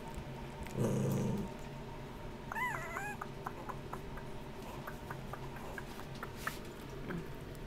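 Three-week-old puppies squabbling at a food bowl: a short low growl about a second in, then a few high squeaks around three seconds in, followed by scattered light clicks.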